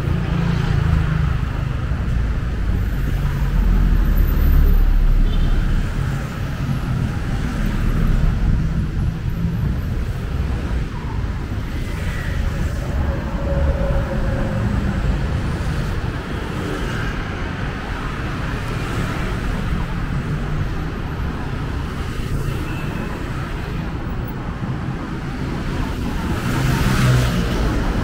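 City road traffic: a steady rumble of vehicles, swelling as vehicles pass about four seconds in, again at about eight seconds, and near the end.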